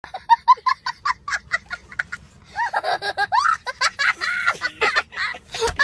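A young boy laughing hysterically: a fast run of short, high laugh pulses, about five a second, then longer high-pitched laughs from about halfway.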